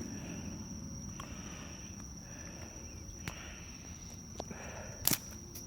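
Crickets trilling steadily on one high note, with a few scattered light clicks and knocks; the loudest is a sharp click about five seconds in.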